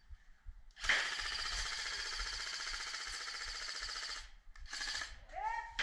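Airsoft electric rifle firing on full auto: one long burst of about three and a half seconds starting about a second in, then a short second burst near the end.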